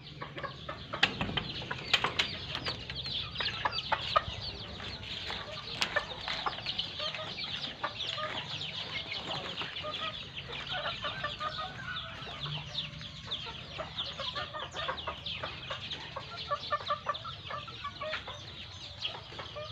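Backyard chickens clucking over a dense, continuous chorus of high, quick chirps. A few sharp knocks and clicks come in the first six seconds.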